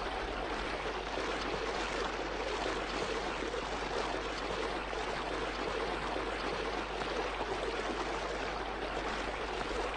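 Fast-flowing forest stream rushing steadily over rocks, an even, unbroken water noise.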